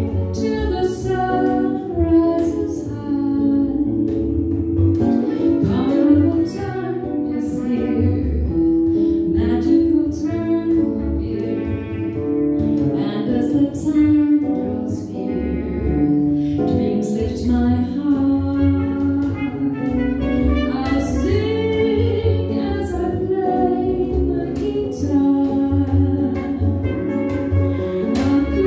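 Live small-band jazz: a woman singing with trumpet, acoustic guitar and plucked double bass accompanying her.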